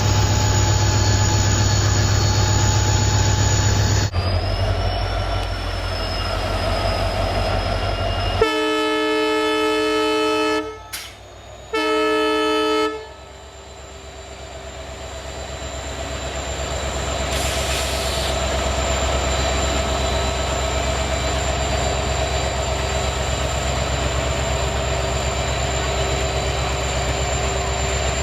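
Sound effects of a WDP4 diesel locomotive played by a toy model: a steady, low engine drone shifts about four seconds in with a rising whine. Two horn blasts follow, a long one and then a short one. The engine sound then builds up over several seconds and settles into a steady run.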